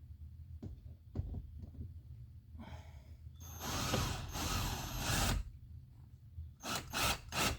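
Hart cordless drill driving a screw during a car speaker install: a few clicks of handling, then a burst of the drill running for a couple of seconds. Near the end come short repeated pulses, about three a second, as the screw is worked until it bites.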